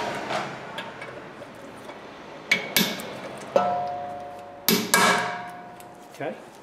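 Hammer tapping a new cast-iron brake rotor to seat it on the hub of a 2010 Honda Accord's rear axle: about six sharp metallic taps, starting about two and a half seconds in. One tap leaves the disc ringing with a clear bell-like tone for a couple of seconds.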